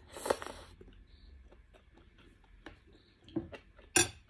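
Close-miked eating sounds of enoki mushrooms being chewed: faint, wet clicks of chewing, with a short noisy burst just after the start and one sharp click about four seconds in.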